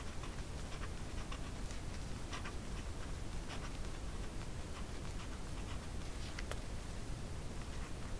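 Pen writing by hand on paper: faint, irregular scratches of the nib as the words are written, over a steady low background hum.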